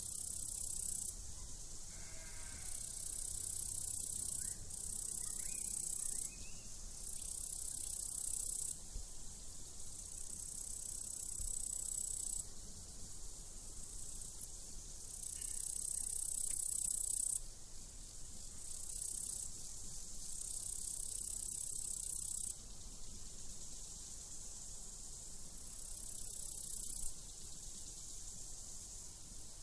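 Crickets chirping in high-pitched bursts of one to two seconds, one after another, with a single short sheep bleat about two seconds in.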